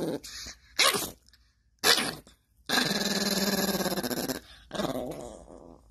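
A small Yorkie mix dog growling and barking, annoyed at being woken. Two short sharp barks about a second apart, then a long growl of nearly two seconds, and a shorter growl that trails off near the end.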